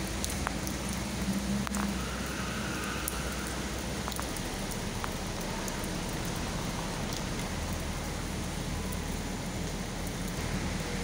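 Steady rain falling and pattering on wet paving, with scattered drips and a low steady hum underneath.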